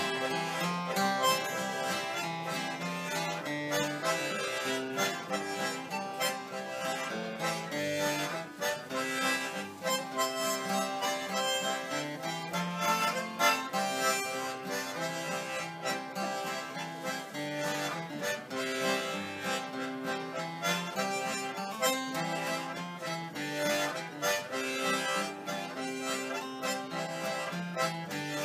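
Harmonica playing a melody over strummed acoustic guitar chords, an instrumental tune with a steady beat.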